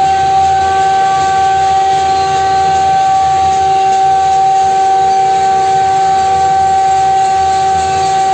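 A steady, held horn-like tone that does not change pitch, typical of conch shells being blown, over a dense din of noise from the apartment blocks.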